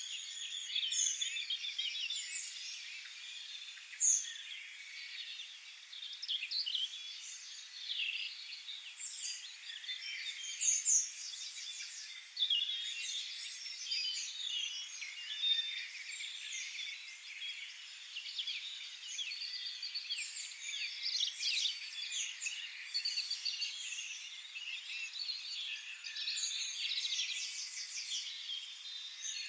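Many songbirds singing at once in a continuous chorus of overlapping chirps, warbles and rapid trills.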